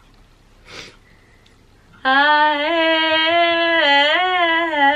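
A woman humming a tune, starting about two seconds in, with long unbroken notes that rise and fall slowly in pitch.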